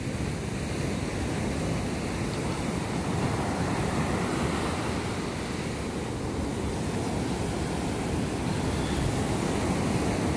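Ocean surf breaking and washing up a sandy beach: a steady rush of noise that swells and eases slightly as the waves come in.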